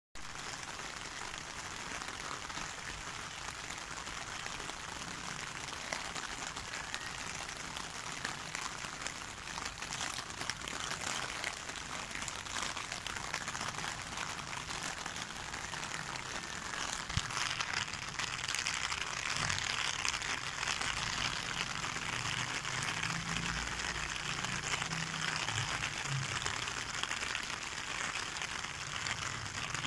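Steady rain falling on a wet concrete rooftop: a dense, even hiss of drops that grows a little louder about halfway through.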